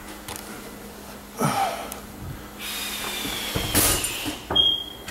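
Cabinet doors with bent hinges being handled: a creak about one and a half seconds in, then a longer scraping rub, with knocks and clicks as the doors are opened and shut.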